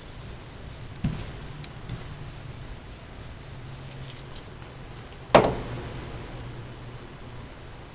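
Two knocks over a low steady hum, with faint rubbing between them: a light knock about a second in and a sharp, much louder one about five seconds in that rings on briefly.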